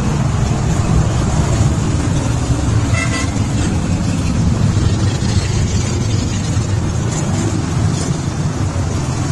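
Motorcycles riding past in a large group, a steady rumble of engines, with a short horn toot about three seconds in.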